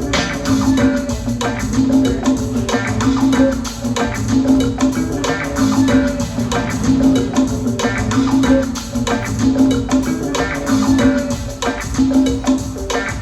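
Latin-style music with hand percussion, shaker and wood-block-like clicks in a steady rhythm over a repeating bass line, played back through an Audiocircle Berlin car speaker set (midbass and tweeter) as a sound-quality test track.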